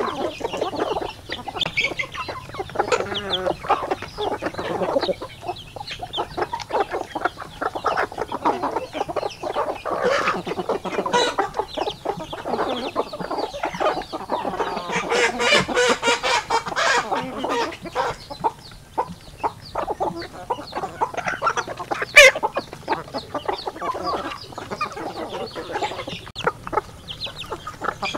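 A flock of chickens clucking and calling while they peck grain from a feeder, with many quick pecking taps; one sharp knock about three-quarters of the way through.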